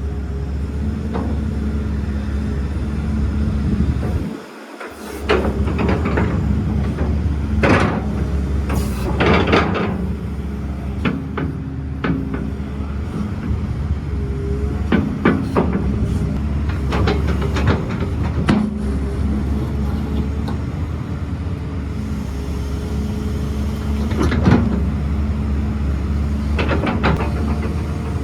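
Zoomlion 205 crawler excavator's diesel engine running steadily, with intermittent sharp clanks and knocks from the machine.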